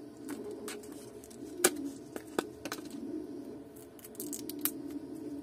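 Snap-off utility knife cutting open a plastic blister pack, with sharp clicks and snaps of the plastic as the screwdriver bit is freed; the loudest snap comes about a second and a half in. A steady low hum runs underneath.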